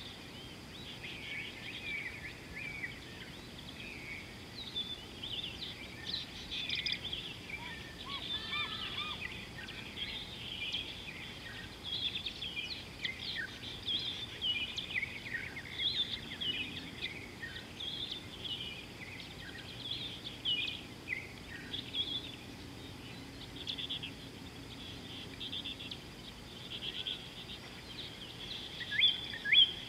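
Many wild birds chirping and whistling continuously in short overlapping calls, with a few louder calls near the end.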